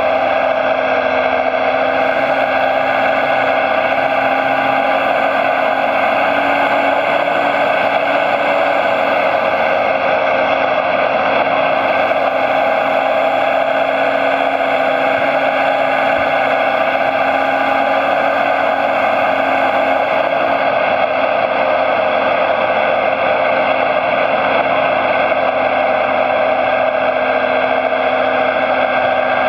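Motor of a radio-controlled construction machine model running steadily: a constant, even whine whose pitch does not change, with a faint high-pitched layer that cuts in and out twice.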